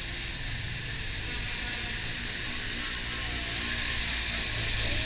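Riding inside a vehicle on a rain-wet road: a steady low engine rumble under an even hiss of tyres and rain, growing a little louder near the end.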